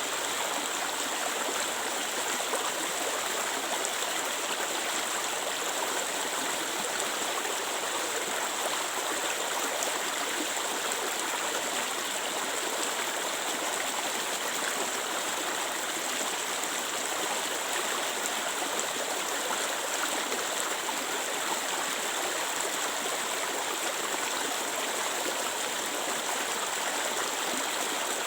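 Clear water flowing steadily in a stream, an even, unbroken rushing and babbling.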